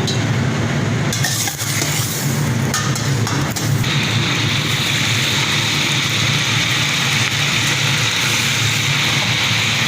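Chicken pieces deep-frying in hot oil: a sizzle that swells about a second in and settles into an even hiss, over a steady low hum.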